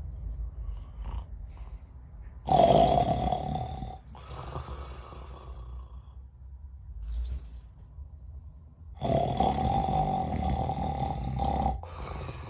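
A person snoring: two long, loud snores, the first about two and a half seconds in and the second, nearly three seconds long, about nine seconds in, with softer breathing between them.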